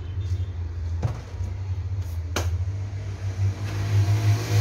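A low, steady engine rumble that grows louder near the end, with two sharp clicks of parts being handled at the workbench.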